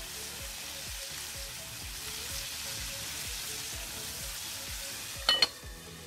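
Chicken pieces sizzling steadily in hot oil in a large metal pot. About five seconds in, a sharp metallic clang with a brief ring as the pot's metal lid is set on.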